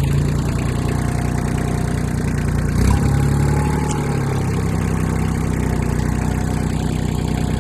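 An engine idling steadily, with a low thump about three seconds in, after which its note shifts slightly.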